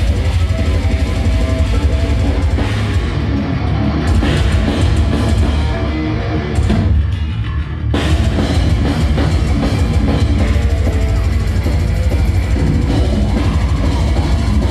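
Death metal band playing live: heavily distorted electric guitar, bass and a pounding drum kit, loud, with the low end dense and overloaded.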